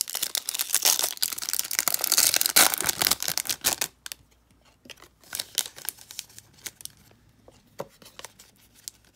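Trading card pack wrapper being torn open and crinkled in the hands for about four seconds. After that come fainter, scattered crinkles and clicks as the pack and cards are handled.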